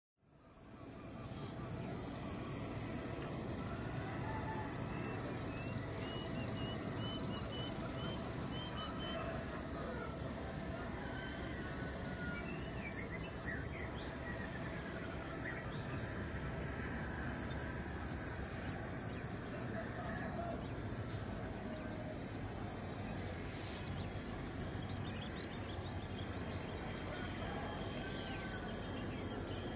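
Insects trilling steadily, with crickets chirping in repeated pulsed groups and birds calling here and there, over a low distant rumble. The sound fades in at the start.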